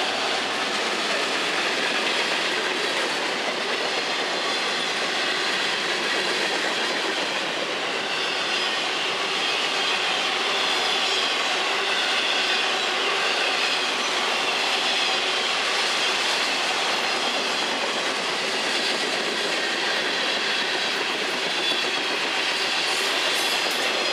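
Freight train cars rolling past: the steady rumble and clatter of steel wheels on rail, with a faint, wavering high wheel squeal running under it.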